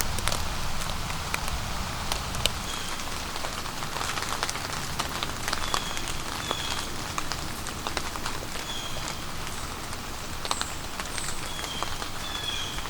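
Steady rain falling through forest, with many sharp drops ticking. Short, high, slightly falling chirps repeat about a dozen times.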